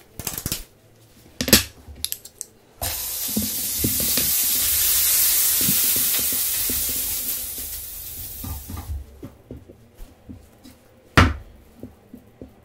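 Hot crepe griddle sizzling as a cloth is wiped over its surface, sending up steam: a loud hiss that starts suddenly about three seconds in and fades away by about nine seconds. A few knocks before it and a sharp knock about eleven seconds in.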